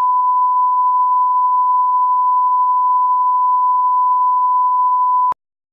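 Steady 1 kHz test tone, the line-up reference tone that accompanies colour bars, held at one pitch and cutting off suddenly about five seconds in.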